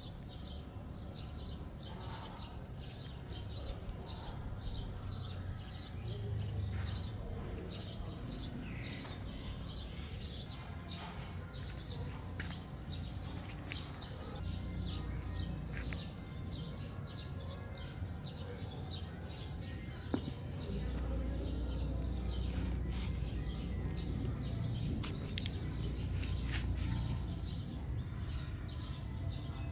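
Small birds chirping busily, a rapid run of short high chirps, over a steady low rumble.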